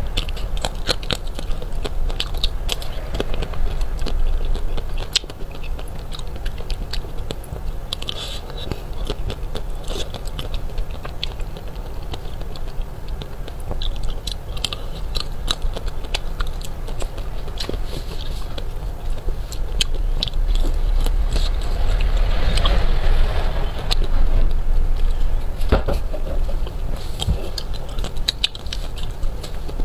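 Close-miked biting and chewing of a crisp-shelled ice cream bar: the hard coating cracks and crunches in many small crackles, with chewing in between.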